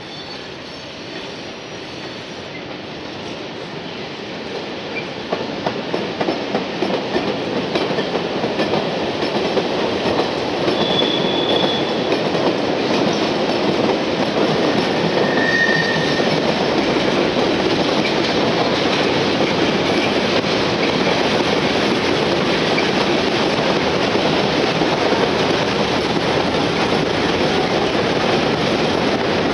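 Freight train wagons rolling past on the rails, growing louder over the first ten seconds and then steady, with the wheels clattering over rail joints. Two short, high wheel squeals come near the middle.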